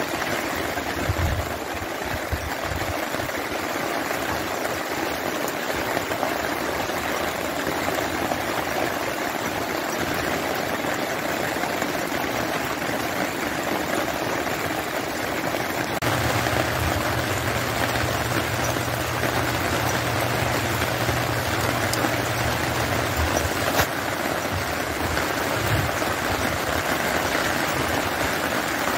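Steady rain falling, an even hiss with no breaks. About halfway through, a low hum comes in under it for around seven seconds, then fades.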